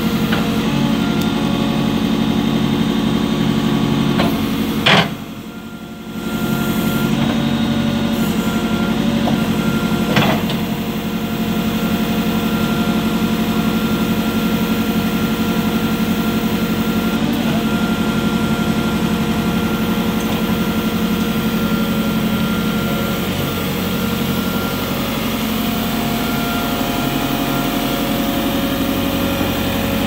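JCB 3CX backhoe loader's diesel engine running steadily while the backhoe arm is worked on its hydraulics. A sharp clank about five seconds in, with the sound dropping for about a second after it, and another about ten seconds in.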